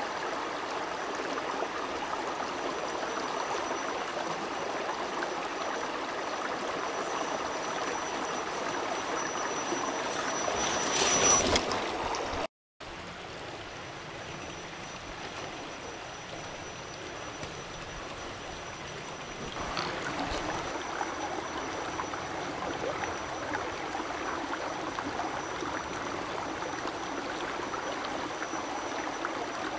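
Shallow creek flowing and trickling over stones, a steady rush of water. About eleven seconds in a brief louder rustling noise swells up, then the sound cuts out for a moment; afterwards the water runs on a little quieter.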